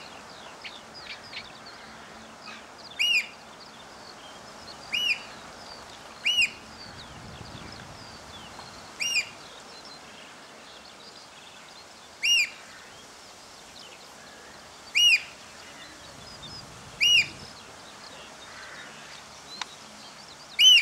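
Eurasian oystercatchers calling: about eight loud, high single piping notes, each a short note that rises and falls, spaced two to three seconds apart. Faint chirps of small birds sit underneath.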